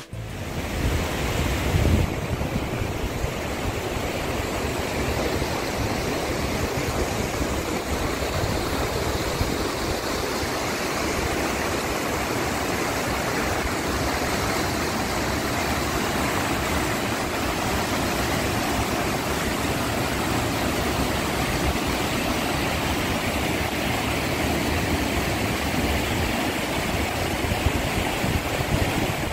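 River water rushing over rock ledges in rapids and small falls, a steady, even rush.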